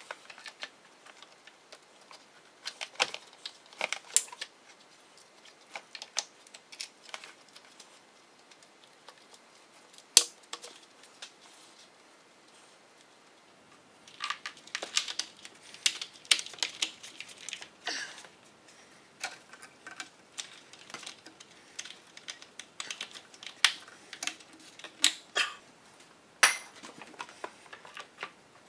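Irregular clicks and clatter of hard plastic and metal engine parts handled and pressed into place by hand: a fuel rail with its injectors and a plastic wiring-harness tray going back onto an inline-six's intake side. Sparse at first with a quiet spell midway, then a busier run of clicks in the second half.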